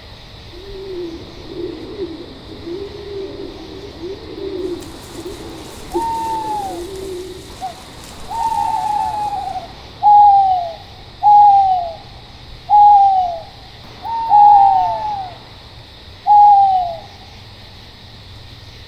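Owl calls: a low, wavering hooting for the first several seconds, then louder hoots that each slide down in pitch, repeated about every second and a half, over a steady high hiss.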